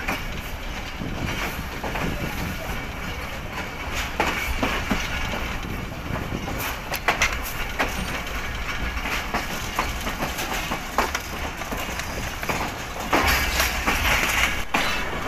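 Passenger coach wheels running on the track, a steady rumble broken by irregular sharp clicks and clatter as the wheels cross rail joints and points. A louder, harsher stretch of clatter comes near the end.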